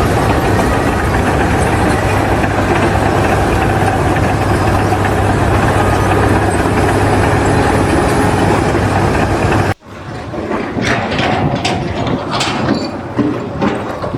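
A heavy engine running steadily with a deep hum for about ten seconds, then cut off abruptly, followed by scattered knocks and clicks.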